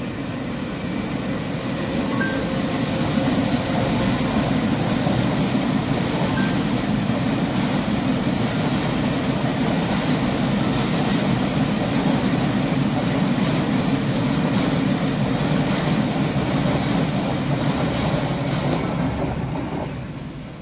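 A train passing close by on the rails. The rumble and wheel noise swell over the first few seconds, hold steady and loud, then fade away near the end.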